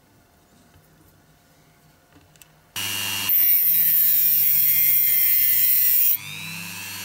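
Dremel rotary tool with a thin metal cutting disc starting up about three seconds in, then grinding through a thin steel axle rod with a loud, high-pitched hissing grind, its whine sagging slowly under the load. Near the end the load comes off, the whine rises as the motor runs free, and the tool stops.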